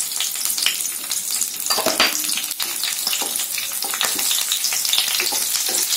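Cumin seeds, green chilies and bay leaves sizzling and crackling in hot mustard oil as a tadka (tempering), with a spatula stirring them in the pan.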